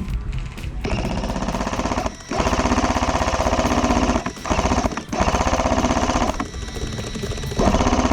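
G&G MG42 airsoft electric machine gun firing long full-auto bursts, a fast rattle broken by short pauses about every one to two seconds.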